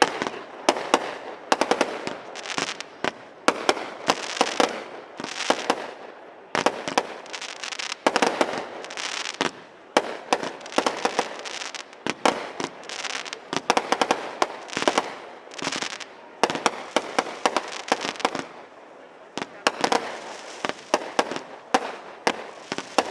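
Aerial fireworks display: a fast, continuous run of sharp bangs and pops, several a second, with crackling between them and a brief lull about three-quarters of the way through.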